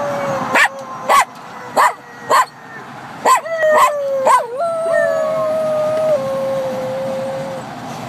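Jack Russell terrier howling: long, wavering held notes, broken in the first few seconds by short, sharp yips, ending in one long steady howl.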